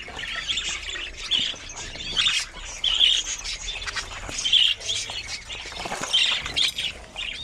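Budgerigars squawking and chattering, with a sharp call repeating about every one and a half seconds over constant busy chatter and scattered short clicks.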